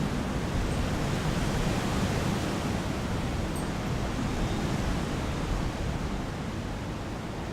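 Strong wind on a stormy day, a steady rushing noise heaviest in the low end, easing slightly near the end.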